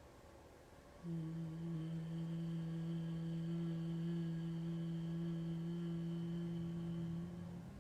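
A woman humming one long, steady low note on the out-breath. It starts about a second in and holds at one pitch for about six and a half seconds before stopping.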